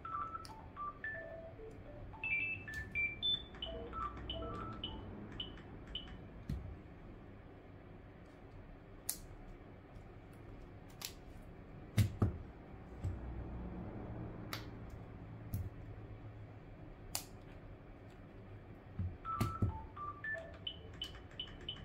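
A short melody of bell-like notes plays over the first few seconds and again near the end. In between come scattered sharp clicks and taps as small smartphone parts and flex-cable connectors are handled and pressed into place.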